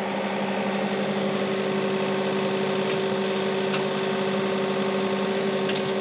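John Deere 2038R compact tractor's diesel engine running steadily at about 2000 RPM while it drives the 270B backhoe's hydraulics, a constant pitched hum with no change in speed.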